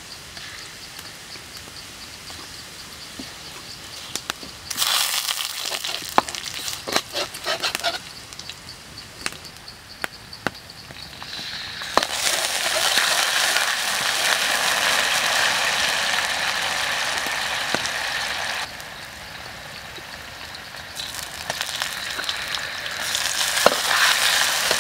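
Garlic sizzling in hot oil in a steel wok, with a metal ladle clicking and scraping against the pan. About halfway through the sizzle turns much louder and steady, eases off for a few seconds, then builds again near the end.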